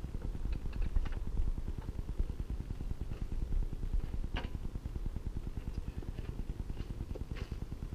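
Wind buffeting the microphone with a low, fluttering rumble, over a few faint metal clicks and one sharper clank about four and a half seconds in as a steel snowmobile dolly is worked into place.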